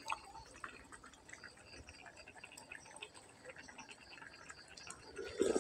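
Pot of noodle and spinach soup simmering on a gas flame: faint, irregular small ticks and pops.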